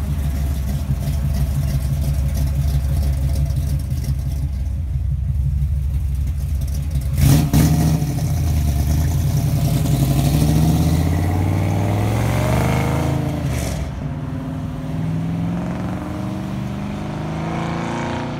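1957 Ford sedan's engine running loudly, then revving up as the car pulls away and accelerates. A sharp crack comes about halfway through, the loudest moment, and a fainter one follows a few seconds later. The engine sound eases off a little near the end as the car moves away.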